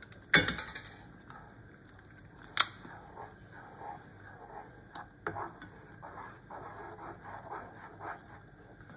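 A white spatula stirring thickened sweet chili sauce in a saucepan, scraping the bottom so the sauce doesn't catch. There is a brief clatter about half a second in and a sharp knock against the pan about two and a half seconds in, then soft scrapes.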